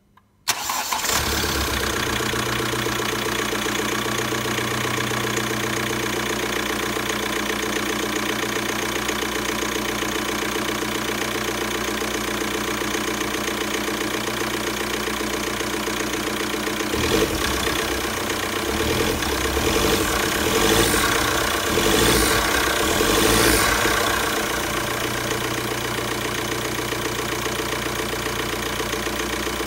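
Kia Soul 1.6 CRDi four-cylinder common-rail diesel engine starting, catching almost at once, then idling steadily after its fuel filter has been replaced. Between about 17 and 24 seconds in it runs louder and more unevenly for a few seconds before settling back to a steady idle.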